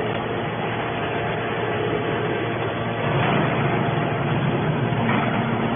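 TCM hydraulic scrap-metal baler running: the steady noise of its hydraulic drive as the press lid closes down over the charging box. It gets louder and heavier for a couple of seconds from about three seconds in.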